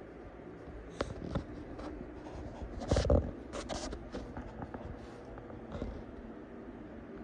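Handling and movement noise: scattered clicks, rustles and knocks, with a louder thump and rustle about three seconds in, over a steady low hum.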